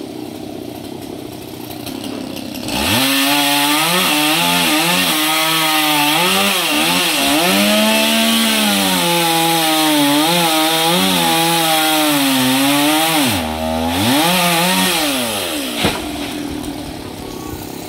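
Two-stroke chainsaw idling, then throttled up about three seconds in to cut through a coconut palm trunk. Its engine pitch wavers up and down as the chain bites and recovers. It drops to idle briefly around thirteen seconds, revs once more, and settles back to idle near the end.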